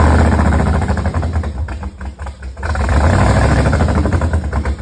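V8 engine with open exhaust headers running loud and rough, its rumble sagging unevenly about two seconds in and then picking back up. The owner thinks the timing may be a little off, as it is backfiring through a carburetor.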